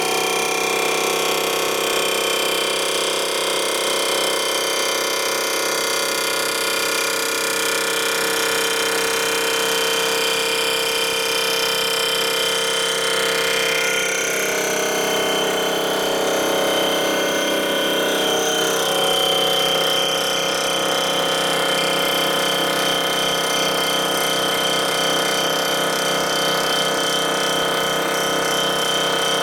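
Rotary surfacing machine's spinning cutter head running over the deck of a Ford flathead four-cylinder engine block, a steady machine whine made of several even tones. About halfway through, the mix of tones shifts for a few seconds, then settles again.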